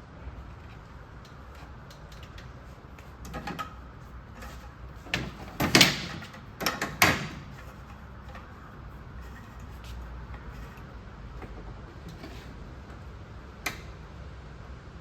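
Hard platform parts knocking and clattering as they are handled and fitted, over a low steady hum. There are a few light knocks about three seconds in, a loud cluster of knocks between about five and seven seconds, and one more sharp knock near the end.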